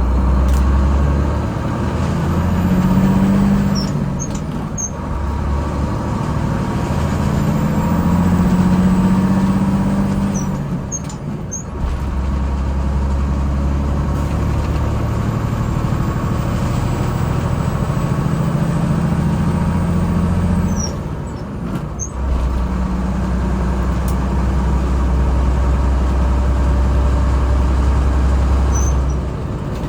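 GMC cab-over truck's engine running under load while driving, its note holding steady for stretches and briefly dropping away about four, eleven and twenty-one seconds in, as between gear changes.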